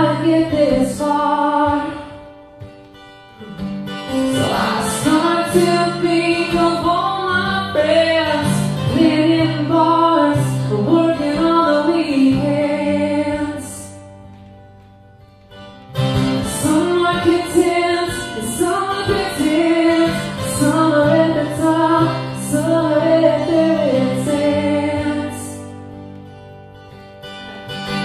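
A woman singing with her own acoustic guitar accompaniment, in sung phrases separated by short pauses.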